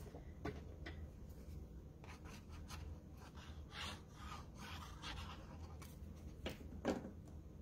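Cardstock being handled and rubbed: short papery scrapes and rustles as a white card panel is turned over and glue is run along its back with a liquid glue applicator. One louder scrape comes near the end.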